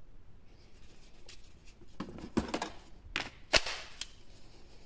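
Sharp plastic clicks and knocks, about half a dozen in the second half, as a Parkside X20V Team battery pack is handled against a hard plastic tool case.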